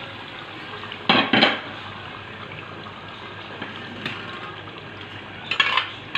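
A steel ladle scraping and knocking against an aluminium pot as mashed boiled pumpkin is scraped out into the cooking pan: two loud scrapes about a second in and more near the end. Under it runs a steady low sizzle of the frying chicken-and-tomato masala.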